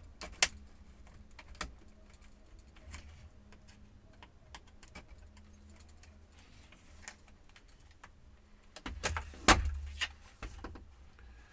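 Scattered plastic clicks and taps from a Compaq F700 laptop's plastic casing being handled and pried apart, with a louder cluster of knocks about nine seconds in.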